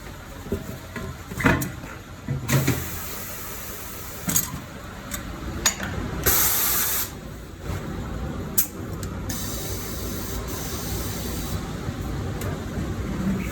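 Tyre-change workshop sounds: short hisses of compressed air, the loudest lasting about a second midway, among scattered clicks and knocks of tools.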